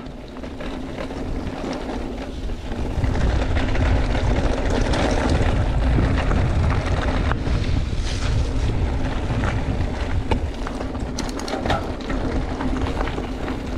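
Mountain bike descending a trail at speed: wind buffeting the microphone over a steady rushing noise, with scattered clicks and rattles from the bike and its tyres on the rough trail surface.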